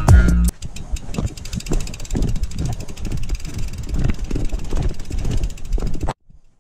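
Irregular knocking and rattling with wind on the microphone, as of a camera jostled while moving over rough ground. It cuts off suddenly near the end. Music ends about half a second in.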